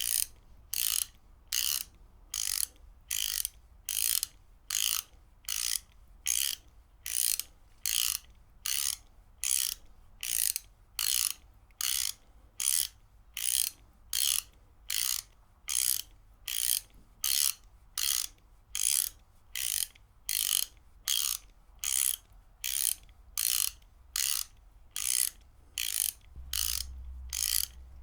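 Ratchet wrench clicking as it is worked back and forth: short bursts of rapid pawl clicks, about three every two seconds, in an even rhythm.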